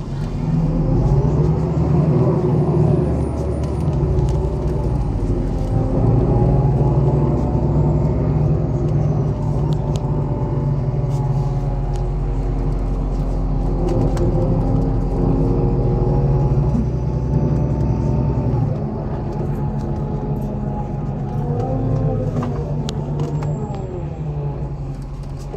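MAZ-103 city bus on the move: its diesel engine runs under load with a heavy low rumble, its pitch rising and falling several times as the bus speeds up and slows down.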